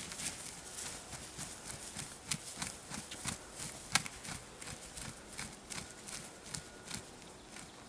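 A freshly shot wild turkey gobbler flopping and beating its wings against the grass in its death throes: an irregular run of soft thumps and rustling, several a second, with one sharper hit about four seconds in, dying down near the end.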